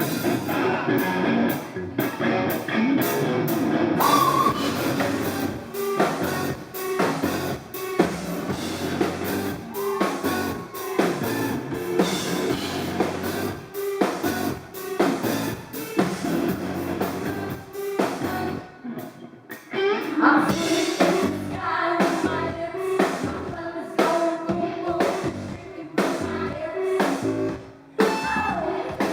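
Live rock band playing: a drum kit keeping a steady beat under guitars and sung vocals, captured poorly by a camera microphone.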